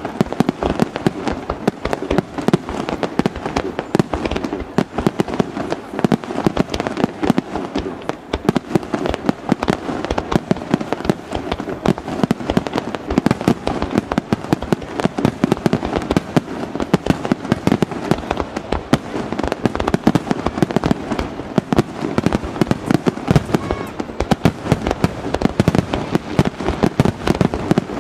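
Aerial fireworks display in a dense, unbroken barrage: many shells bursting in rapid succession, booms and crackles overlapping with no pause.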